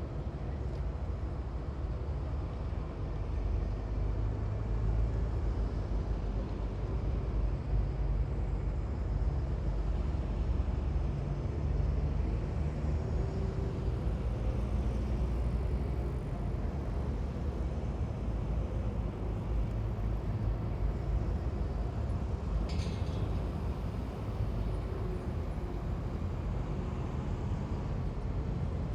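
A column of heavy military vehicles drives past with a steady low engine rumble that swells somewhat around ten seconds in. A brief high squeal comes about 23 seconds in.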